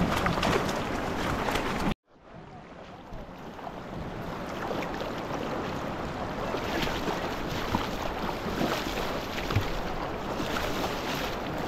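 Water sloshing and splashing, with wind noise on the microphone. The sound cuts out abruptly about two seconds in, then fades back up.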